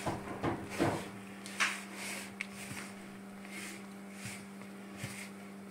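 Halušky dough of blended potato, flour and salt being stirred in a bowl: irregular soft scrapes and knocks, with a few brief swishes, over a steady low hum.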